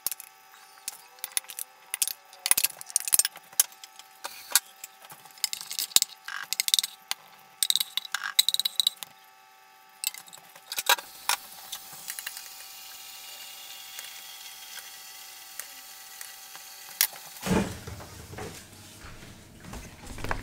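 A serving spoon knocking and scraping against ceramic dinner plates as mashed potato and vegetables are served, in a string of sharp clinks and taps. About halfway through the taps stop and a faint steady hiss takes over, with a low rumble near the end.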